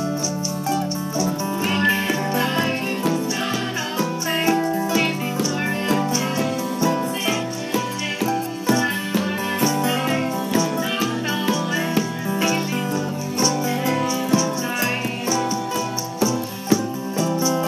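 Acoustic country-folk music: a strummed acoustic guitar with a steady high rattle keeping the beat.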